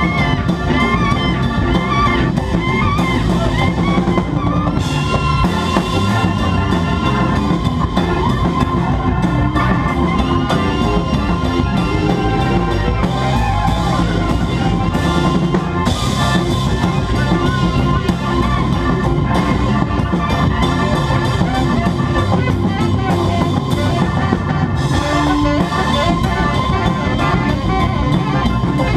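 A live band playing loudly: a drum kit keeps a steady beat under electric keyboards and organ.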